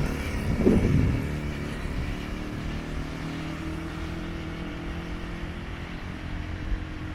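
Small petrol engine of a converted Power Wheels buggy giving a brief rev about a second in, then settling to a steady idle.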